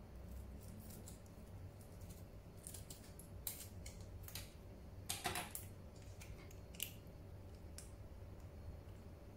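Faint handling of small plastic food sachets: crinkling and rustling, with a few short sharper sounds about three and a half and five seconds in, as a sachet is cut open with small scissors.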